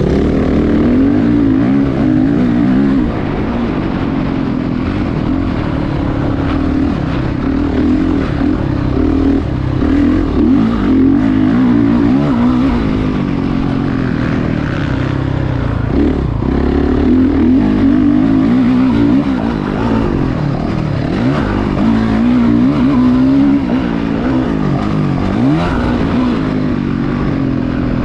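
Onboard sound of a 2019 Honda CRF450 dirt bike's single-cylinder four-stroke engine at racing speed on a motocross track, revving up and down with short drops in pitch as the rider shifts and shuts the throttle.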